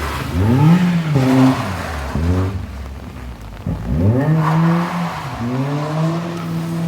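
A rally car's engine revving hard, its pitch rising and dropping several times in quick succession, sinking low about halfway through, then climbing again and holding at steady high revs.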